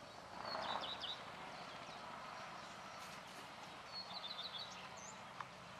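A small songbird chirping in two quick trilled phrases, with a single higher chirp near the end, over faint steady outdoor background noise. A short rush of noise comes about half a second in.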